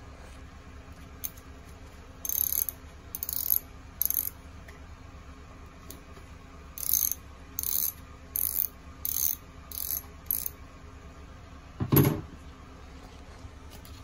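Socket ratchet clicking in short strokes as it turns a 5 mm hex bit on the bolts of a Kubota diesel's fuel shut-off solenoid: three strokes, a pause, then six more. About twelve seconds in there is a single louder knock.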